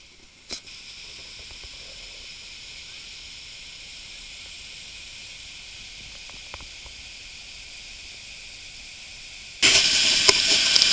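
Water rushing over a river weir: a faint, steady hiss of rushing water, then about a second before the end a sudden jump to loud, close rushing white water at the foot of the weir.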